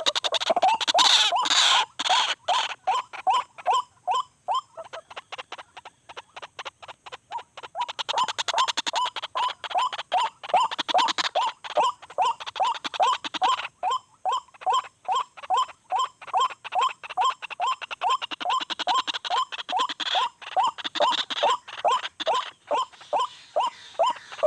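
White-breasted waterhen calling: a long monotonous run of short, repeated notes, about three a second, used to lure the birds to the trap.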